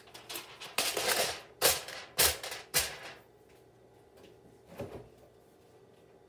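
Aluminium foil covering a pan crinkling as it is handled, in a few short rustling bursts through the first three seconds and one more about five seconds in.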